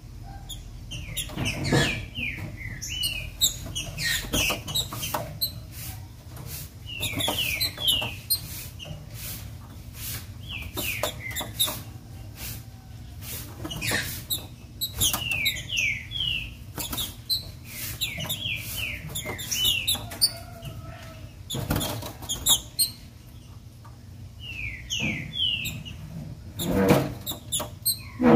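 Female green-winged saltator (trinca-ferro) calling: short runs of three to five quick, falling whistled notes, repeated every couple of seconds, with a few seconds' pause late on. Sharp clicks and knocks are mixed in, from the bird moving about its cage.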